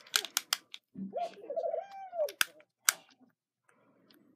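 A bird cooing once in the background, one long wavering call, with sharp clicks and taps from a plastic toy train being handled while its battery cover is opened.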